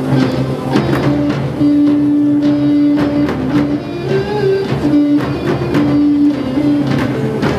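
Live electrofolk band playing: a melody of long held notes over guitar and a steady bass line, with regular drum hits.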